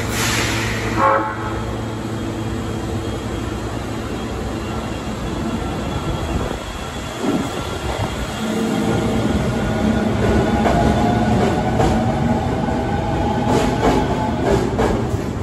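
Osaka Metro 20 series electric train running, its traction motors giving steady whining tones that begin to climb slowly in pitch about halfway through as the train gathers speed. Clicks of the wheels over rail joints come near the end.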